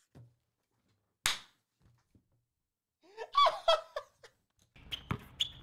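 A man laughing hard in fits, with one sharp, short burst about a second in and a longer run of laughter about three seconds in.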